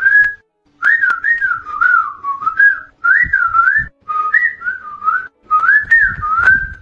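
A whistled tune in short phrases, the pitch sliding up and down, with brief pauses between the phrases.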